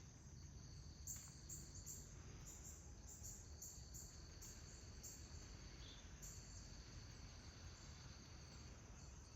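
Faint outdoor ambience: insects trilling steadily in a high pitch, with short repeated chirps above the trill for the first few seconds, over a low rumble.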